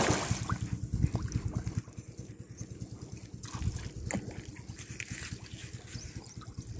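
Pond fish surfacing and gulping at the water, making small scattered splashes and trickling water sounds, over a low continuous rumble that is louder for the first couple of seconds.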